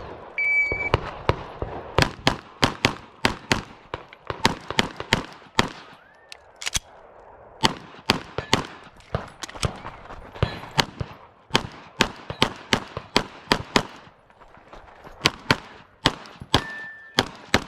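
Shot timer's start beep, then a Glock 17 9mm pistol fired in a fast practical-shooting string: dozens of shots, many in quick pairs, with a short break partway through. Another timer beep comes near the end.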